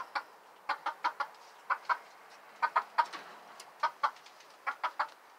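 A chicken clucking: short, separate clucks coming in pairs and short runs of two or three.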